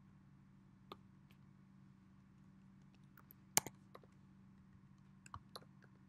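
Faint, irregular clicks of computer keyboard keys as a password is typed in, with one sharper click about halfway through and a quick run of keystrokes near the end, over a steady low hum.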